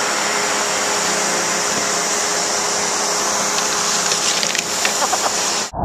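Steady hiss and hum of a snowmaking fan gun blowing snow. About four seconds in comes a run of clicks and scrapes as skis slide across a box feature. The sound cuts off suddenly near the end.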